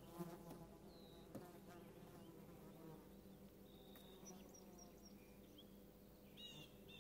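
Faint outdoor quiet with a flying insect buzzing in the first second or two, and a few short, high bird chirps about four seconds in and again near the end.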